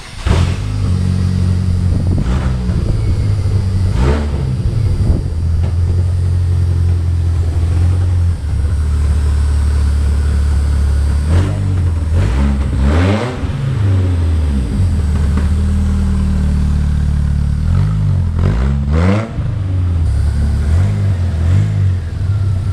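Chevrolet S10 pickup engine running through its newly welded-in Cherry Bomb exhaust, revved up and back down several times, with longer steady stretches between the revs.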